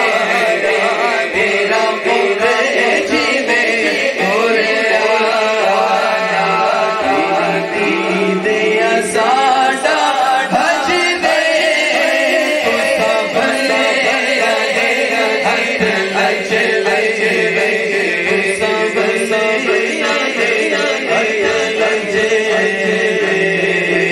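Men chanting a devotional naat in Urdu/Punjabi into microphones, amplified, with more than one voice singing together.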